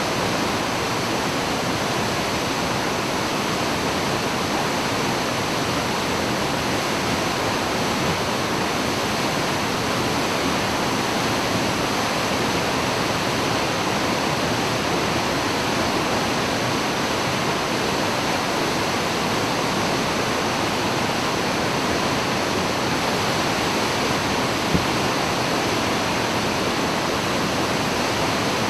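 A 30 m straight-drop waterfall pouring steadily, an even, unbroken rush of falling water. One brief click sounds about three-quarters of the way through.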